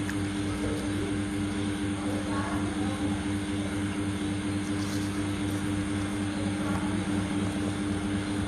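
Steady low machine hum with a few fixed low tones over a faint hiss, unchanging.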